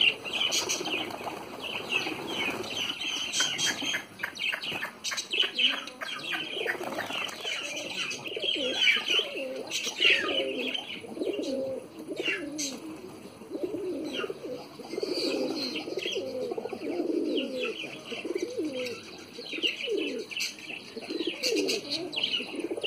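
A large flock of domestic pigeons feeding, many birds cooing over one another, with wing flaps. High chirps and sharp clicks run through it. The cooing grows thicker after the first few seconds.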